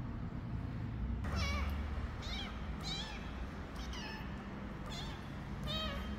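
A tiny tabby kitten meowing six times, short high-pitched calls about a second apart, starting about a second in.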